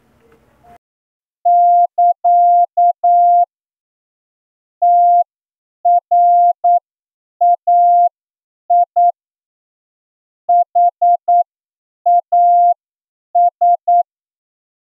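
Morse code sent as a single steady beep tone keyed on and off in short dots and longer dashes, with gaps between letters and words, starting about a second and a half in. It is a practice line for receiving, sent at the exam speed of 8 words per minute.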